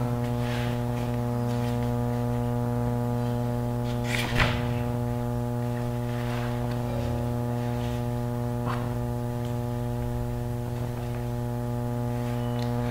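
Steady electrical mains hum, a buzz of many evenly spaced tones running at an even level, with a few faint brief sounds over it, the clearest about four seconds in.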